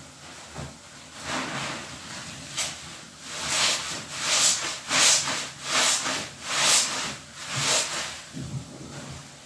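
A large sponge full of dish-soap suds squeezed over and over in both hands: a wet, hissing squelch of foam and water with each squeeze, about one a second, starting about a second in.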